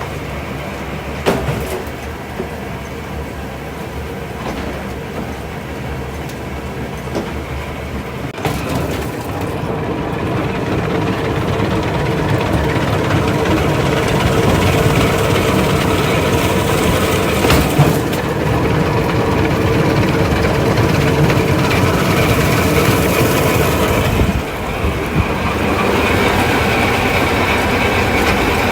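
Winery processing machinery running steadily during the grape harvest, with a few knocks and clatters, getting louder about a third of the way in.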